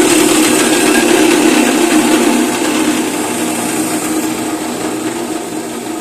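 Grinding machine running steadily while milling palm sugar, a loud even mechanical noise with a constant hum, easing gradually over the last few seconds.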